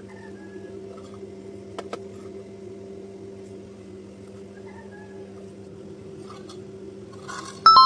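A steady low hum with a few faint taps, then near the end a single loud metallic clang that rings on.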